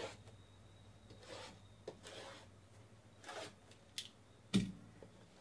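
A blade slitting and hands rubbing over the plastic shrink wrap on sealed cardboard card boxes: a few soft scraping strokes, a couple of light clicks, and a louder knock about four and a half seconds in.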